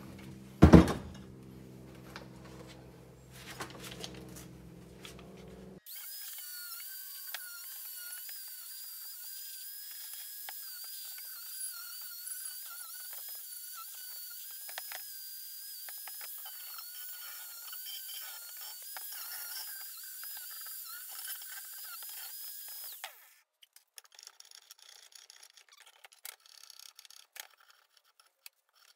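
Electric angle grinder running steadily against a steel bus bumper bracket, scouring off old oil, road grime and rust. It starts about six seconds in and stops a few seconds before the end, its pitch wavering slightly under load, with light clicks of the metal being handled afterwards. A loud knock comes just under a second in.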